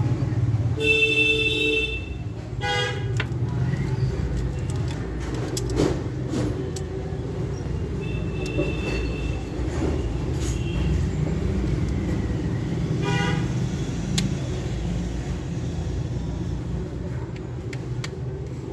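Road traffic rumbling steadily, with several short vehicle horn honks over it.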